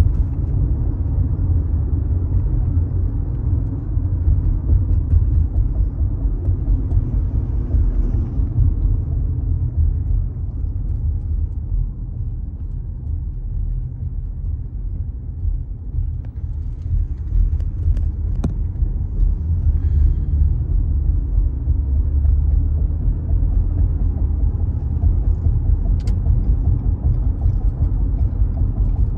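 Steady low road and engine rumble of a moving car, heard from inside the cabin, with two faint clicks, one about two thirds of the way through and one near the end.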